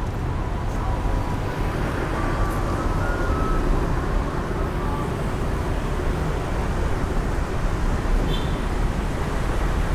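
Steady outdoor background noise with a heavy low rumble and no speech, with a few faint short high tones in the first half.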